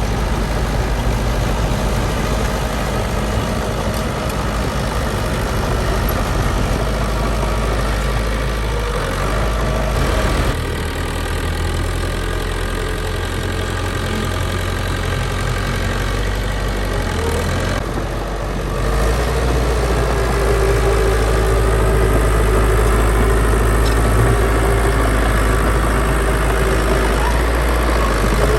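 Diesel engine of heavy earthmoving machinery running steadily with a low hum, dropping in level about ten seconds in and picking up again a little past halfway.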